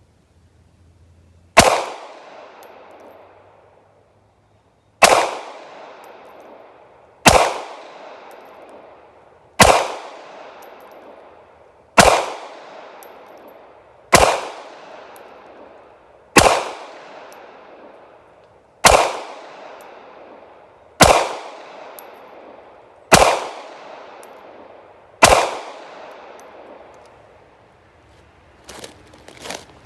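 Eleven pistol shots from a Smith & Wesson Bodyguard 2.0 in .380 ACP, fired one at a time about two seconds apart, each with an echoing tail.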